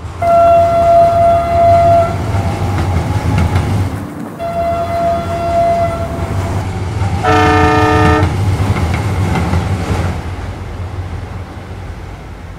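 Local electric train running with a steady low rumble, two long steady high tones in the first half, and a short horn blast about seven seconds in; the rumble fades away near the end.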